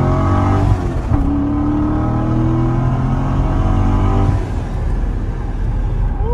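Supercharged 2014 Corvette Stingray's 6.2-litre LT1 V8 at full acceleration, heard from inside the cabin. The revs climb, dip at an upshift about a second in, and climb again. About four seconds in the throttle closes and the engine note drops away.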